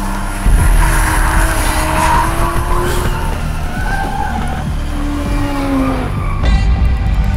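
Tyres squealing with wavering pitch as two cars drift in tandem, their engines running hard, over background music.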